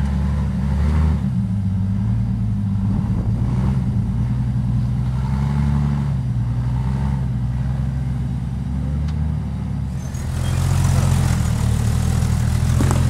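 Jeep engine working at low revs as it crawls up a rock ledge, its pitch rising and falling with the throttle. About ten seconds in, a closer, louder engine takes over, running steadily with more hiss.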